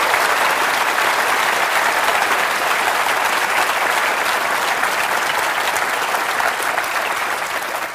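A large audience applauding steadily, the clapping easing off a little near the end.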